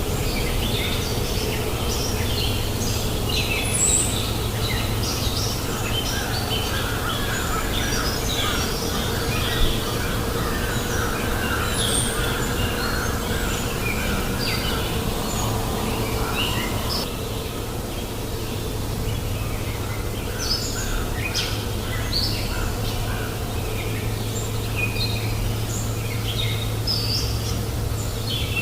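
Several small birds chirping and calling continuously, with short, high notes overlapping one another. A steady low rush of flowing river water runs underneath.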